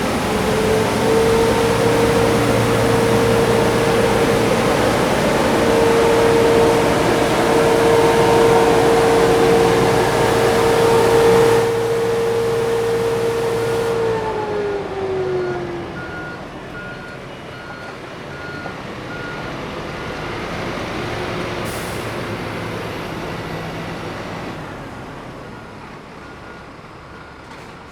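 Road sweeping machine running, with a steady whine over a dense hiss of machinery. About halfway through the whine drops in pitch and the machine grows fainter. A faint repeating beep sounds in the second half.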